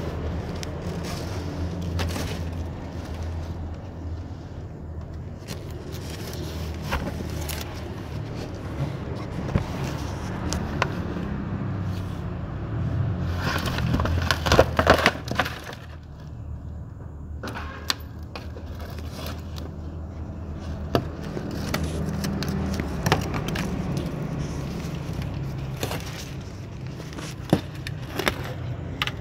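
Scattered knocks and scraping of loose wooden scraps being handled, over a steady low hum. A louder run of clattering and scraping comes about halfway through.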